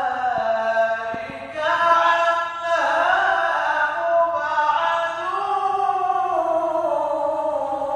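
A male qari's voice in melodic Quran recitation, sung into a handheld microphone in long held phrases that slowly rise and fall in pitch, with a brief pause about one and a half seconds in.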